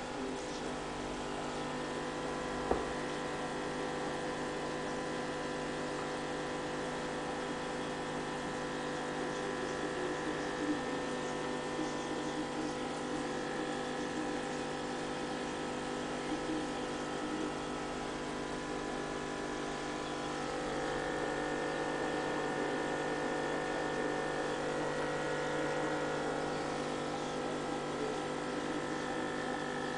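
Aquarium pump humming steadily, with water bubbling in the tank; the hum gets a little louder about two-thirds of the way in. An odd faint click near the start.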